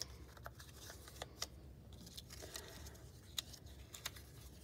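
Faint rustling and light taps of small paper squares being handled and laid down one after another on a tabletop.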